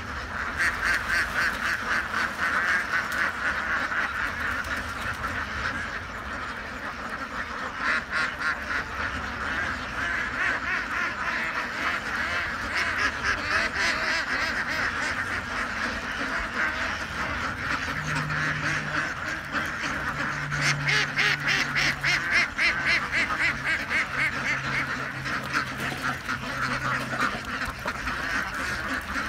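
A large flock of domestic ducks quacking on a pond, a dense chorus of overlapping calls that swells louder several times.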